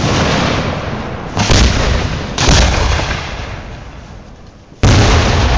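Aerial firework shells bursting overhead: four loud booms, one at the start, one about a second and a half in, one about two and a half seconds in and one near the end. Each boom trails off in a long rumble.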